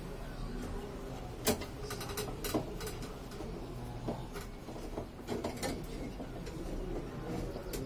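Irregular light clicks and taps, with two sharper knocks about a second and a half and two and a half seconds in, over a low background hum.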